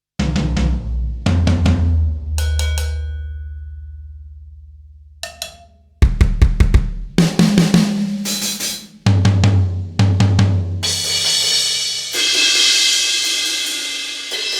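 Sampled acoustic rock drum kit from the EZdrummer 3 Alt-Rock EZX library, played in separate hits and short fills. One deep drum strike rings out for several seconds, then come quicker groups of kick, snare and tom hits, and a cymbal washes out over the last few seconds.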